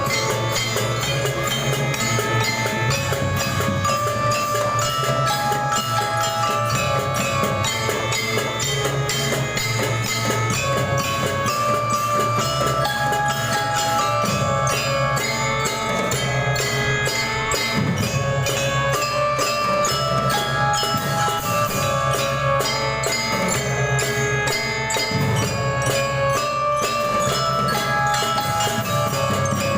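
Drum band playing: a glockenspiel-like bell melody over fast, dense drumming.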